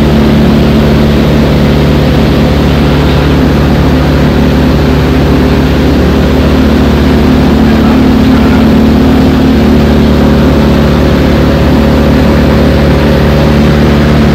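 Motorboat engine running steadily at speed, heard from inside the boat's enclosed cabin, with the rush of water and spray against the hull.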